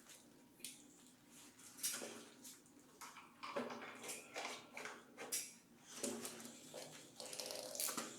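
Irregular clicks, taps and light metallic clatter of hand tools and parts being handled on a motorcycle during a battery change, played back sped up.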